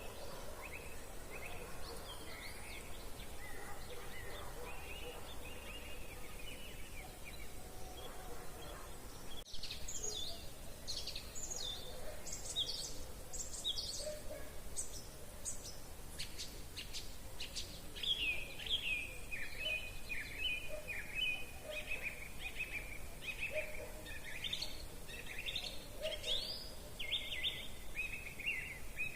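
Several songbirds singing and calling, with many overlapping chirps and trills. After a brief break about nine seconds in, the song is louder and one bird repeats fast runs of notes.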